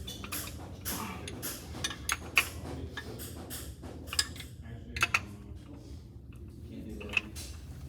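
Metal hand tools clinking and tapping on engine parts: scattered, irregular sharp clicks and knocks, a few louder than the rest, over a steady low hum.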